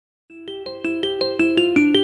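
A smartphone ringtone starting after a brief silence: a quick melody of separate notes, about five a second.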